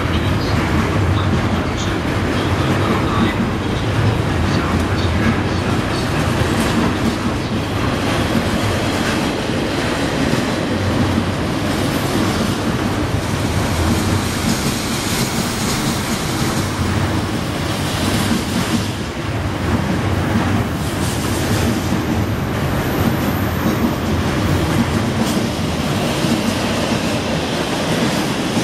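Container freight train's wagons passing at speed: a steady, loud rumble with repeated clatter of wheels over rail joints. Near the end the wagons going by are empty container flats.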